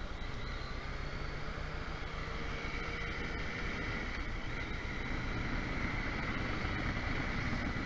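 Motorcycle under way, its engine running steadily beneath wind and road noise, growing a little louder in the second half.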